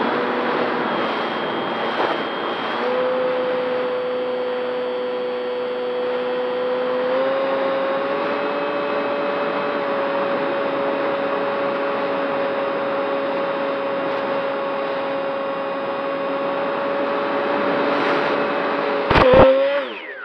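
Model Spitfire's motor and propeller running at a steady, high-pitched whine, heard from on board with wind rushing past, the pitch stepping up slightly as throttle is added about seven seconds in. About a second before the end comes a sharp, loud crack as the plane collides, and the motor note dips and wavers.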